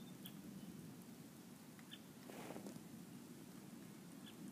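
Faint steady rain during a thunderstorm, with a few scattered drip clicks and a brief swish about two seconds in.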